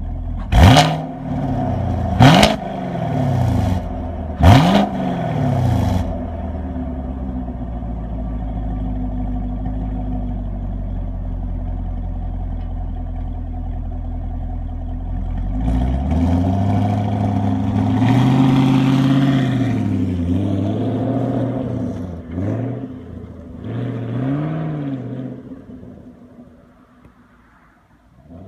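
Chevrolet Camaro SS V8 idling, revved hard three times in quick blips in the first few seconds. It then idles steadily before revving up and holding higher revs for a few seconds. Two more short blips follow, and the sound dies away near the end.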